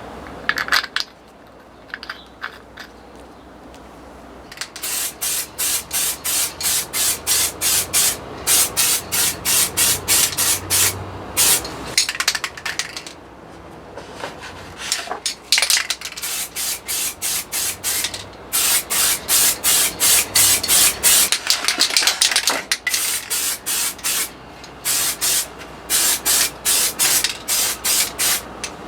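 Rhythmic back-and-forth hand scrubbing strokes, about three a second, in runs with short pauses.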